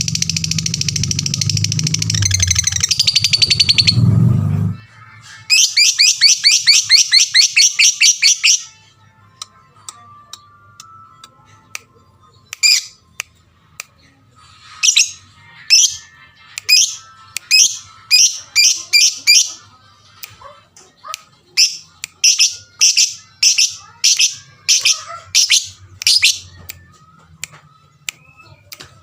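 A lovebird chirping shrilly: a fast run of sharp chirps lasting about three seconds, then single chirps and short runs of about two a second. This is a lure call meant to set other lovebirds singing. Music with a low beat plays for the first four or five seconds.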